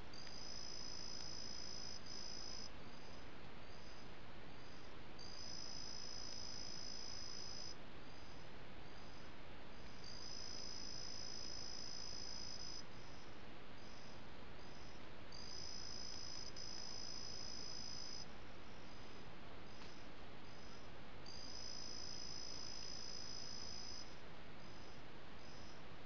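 A night-singing insect repeats a high-pitched song: long trills of about two and a half seconds roughly every five seconds, with short chirps at about two a second between them. Under it runs a steady hiss.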